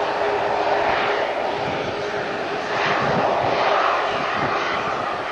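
Boeing 737-300 jet engines (CFM56 turbofans) running as the airliner taxis: a steady rushing noise with a held tone underneath, swelling a little midway.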